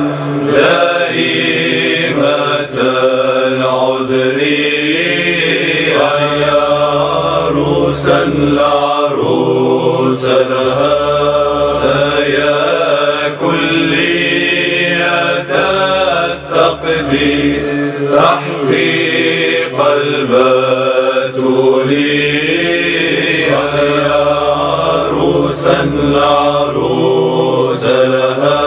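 Orthodox Byzantine chant by men's voices singing a slow, flowing melody over a steady held low note, in a reverberant church.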